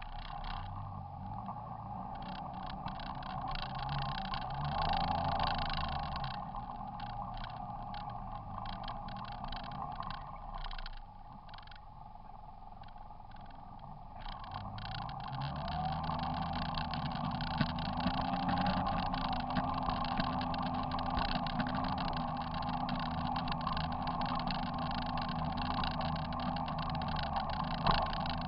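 Off-road vehicle's engine running along a rough dirt trail. It eases off for a few seconds midway, then climbs in pitch and holds at higher revs. Frequent rattling and clicking come through over the bumps, with one sharp knock near the end.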